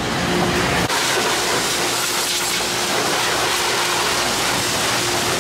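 Pressure washer spraying water onto a motocross bike, a steady hiss of spray that starts with a cut about a second in.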